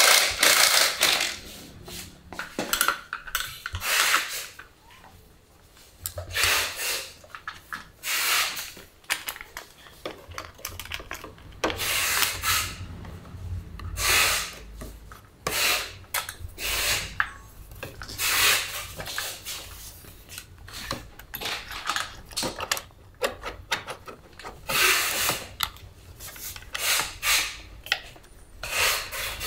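Workshop handling noise: irregular rubbing, rustling and light knocks, every second or two, from hands and tools working on a motorcycle's handlebar controls and plastic-wrapped dash.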